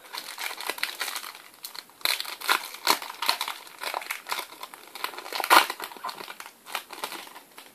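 Foil Match Attax trading-card packet being torn open and handled: irregular crinkling and crackling of the foil wrapper, with the loudest crackle about five and a half seconds in.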